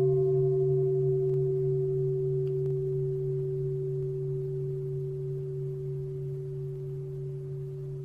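A meditation bell ringing out after being struck: a steady low hum with a slow wavering beat under a clear, stronger higher tone, all gradually fading as the upper partials die away first.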